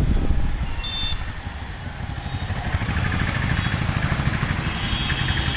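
Motorcycle engine running with an even pulsing beat, getting louder from about two seconds in.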